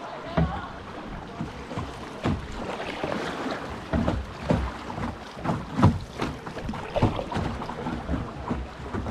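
Canoe paddles dipping and splashing in the water, an uneven run of strokes and knocks, over a steady rush of water and wind.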